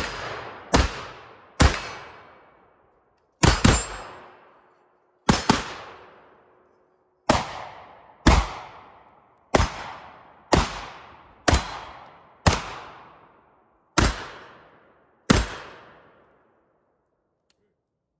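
AR-style semi-automatic rifle fired at steel targets: about fourteen single shots at an uneven pace of roughly one every second or so, with a quick pair about three and a half seconds in, each with a long fading echo.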